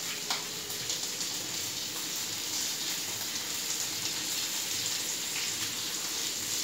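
Cheese frying in olive oil on a flat stovetop griddle: a steady sizzle, with a couple of faint clicks in the first second.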